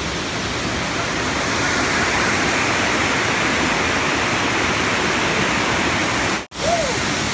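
Steady rushing of water falling at Damtua waterfall, a dense even noise. The sound cuts out abruptly for an instant near the end, followed by a brief high chirp.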